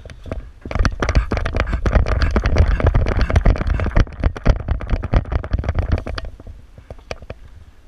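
Airsoft electric rifle firing in long rapid full-auto bursts, a fast clatter of shots over a low rumble, starting just under a second in and stopping about six seconds in, followed by a few single clicks.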